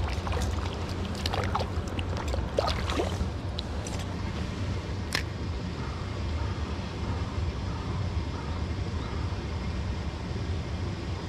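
Steady low rushing of a flowing river stream. A few short chirps come in the first three seconds, and a single sharp click comes about five seconds in.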